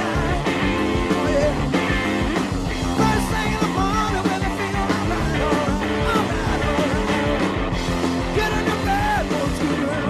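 Hard-rock band playing live: an electric guitar line with notes bending up and down over bass and drums.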